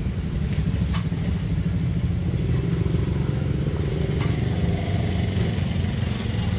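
An engine running steadily close by, a low, even rumble, with a few light clicks over it.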